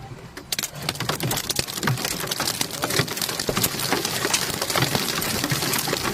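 Sewage and debris from a sewer explosion raining down on a car, heard from inside the cabin: a dense, irregular pattering of many small impacts on the windshield and roof, like a heavy downpour, starting about half a second in.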